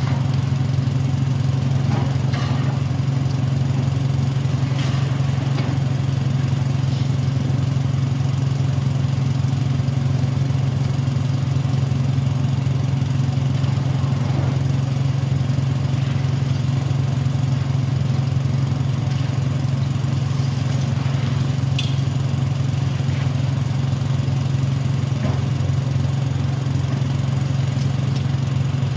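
Caterpillar ultra-high-reach demolition excavator's diesel engine running steadily with a deep drone, with a few faint cracks and knocks of concrete being broken up by its jaws.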